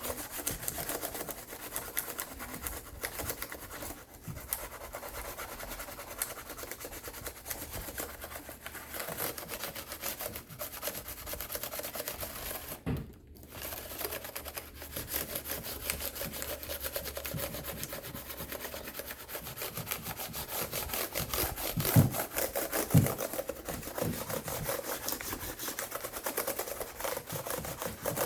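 Steady rubbing and scrubbing on a laptop's parts during cleaning, in quick repeated strokes, with two sharper knocks about three-quarters of the way through.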